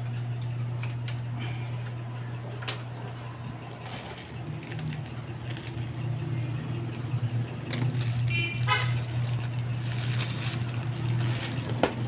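Small plastic parts box and bags of components rattling and rustling as they are rummaged through by hand, with scattered light clicks, over a steady low hum. A brief high squeak comes about nine seconds in.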